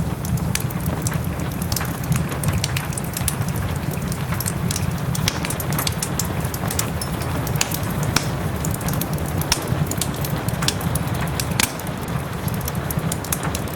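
Wood fire crackling and popping in a fireplace, with many sharp irregular snaps, over a steady hiss of soft rain and a low rumble.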